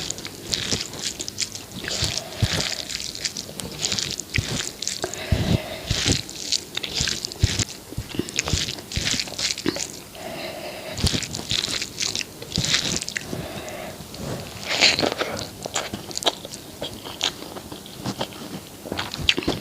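Close-miked ASMR eating: a person chewing and biting food, with many irregular wet mouth clicks and occasional crunches.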